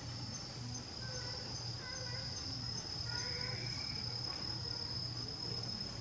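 Insects trilling steadily, a continuous high-pitched buzz.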